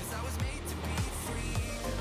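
Background music with a steady beat: a kick drum about twice a second, under light percussion and a melody.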